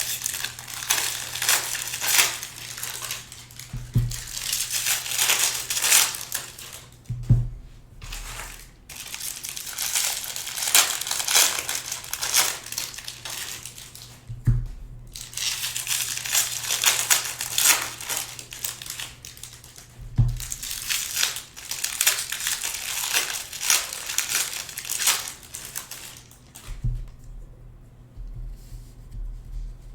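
Plastic trading-card pack wrappers crinkling and tearing as packs are opened and the cards handled, in long rustling stretches with a few short knocks on the table and a steady low hum beneath.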